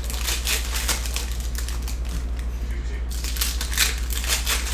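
Panini football trading cards being flipped and dealt one by one off a stack onto a pile, a quick run of crisp papery card flicks and slides, several a second.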